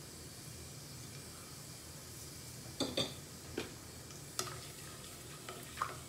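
Whole spices (cumin seeds, star anise, bay leaf, cloves, black cardamom) frying in hot oil in a steel pot: a faint steady sizzle, with a few sharp clicks from about three seconds in.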